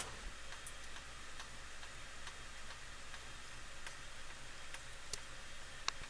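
Wobbling ceiling fan's light fitting ticking faintly and evenly, about two and a half clicks a second, as the loose globe knocks with each wobble of the fan. One sharper click comes near the end.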